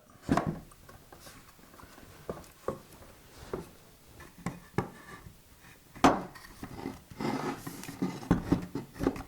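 Wooden pieces being handled and fitted together: scattered knocks, taps and rubbing as loose tenons are pushed into mortises in 2x4s, with a sharper knock about six seconds in and a busier run of knocks near the end.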